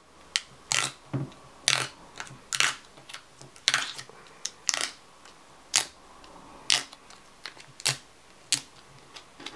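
A dust absorber sticker dabbed onto a phone's glass screen and pulled away again and again, a short sharp sound about once a second, lifting dust off the screen before a protector is fitted.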